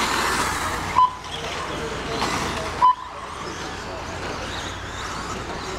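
Radio-controlled electric stadium trucks running on a dirt track, with two short, loud electronic beeps about two seconds apart, one about a second in and one near the halfway point.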